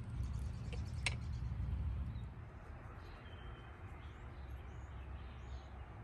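Outdoor ambience: a low rumble with a single sharp click about a second in, then after about two seconds a quieter stretch with a few faint bird chirps.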